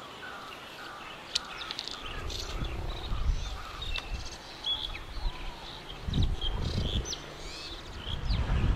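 Wild birds chirping and calling in short, repeated high notes, over an uneven low rumble that comes in about two seconds in and grows near the end.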